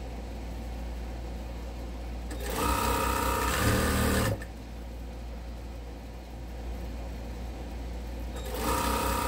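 Sewing machine stitching fabric strips onto a paper foundation in two runs: about two seconds of stitching a couple of seconds in, then a shorter run near the end.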